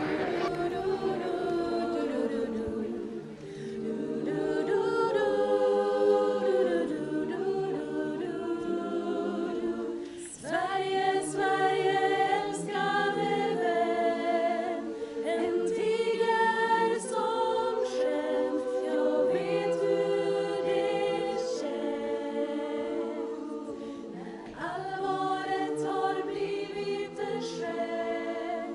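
Women's barbershop chorus singing a cappella, many voices holding sustained chords. There is a short break about ten seconds in before the next phrase.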